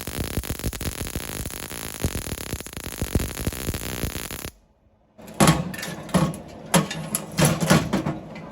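Welding arc crackling and spitting steadily, a dense hiss full of fine clicks, then it stops abruptly about four and a half seconds in. After a brief silence, electronic music with a pulsing beat starts.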